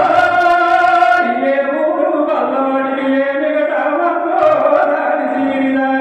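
A man singing a Telugu Golla folk song (golla pata) into a microphone, in about three long, drawn-out phrases of held notes.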